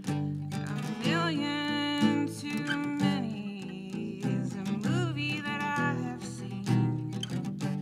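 Solo acoustic guitar strummed and picked, with a woman's voice singing along in phrases over it.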